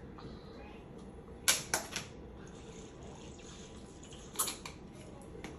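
A few short, sharp clicks over quiet room tone: two close together about a second and a half in, and one more about four and a half seconds in.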